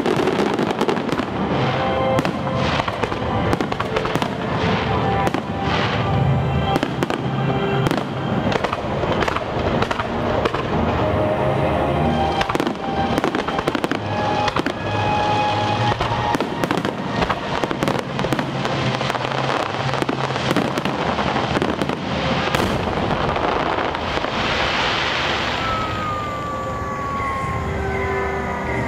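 Fireworks display with dense, rapid bursts and crackling shells going off continuously, over music played on loudspeakers. A falling whistle-like tone sounds near the end.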